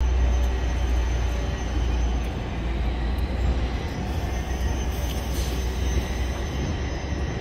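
Steady low rumble under a hiss of outdoor street noise, with nothing standing out.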